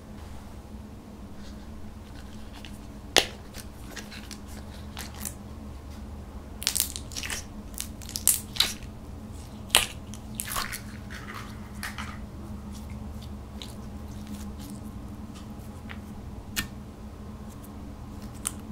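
Hands handling a pink snap-lock plastic tub of slime over a glass dish: scattered sharp plastic clicks and taps, a busy run of crackling, sticky pops around the middle, then slime flowing into the dish. A faint steady low hum runs underneath.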